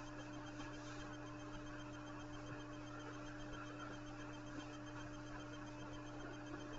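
Faint room tone with a steady low electrical hum.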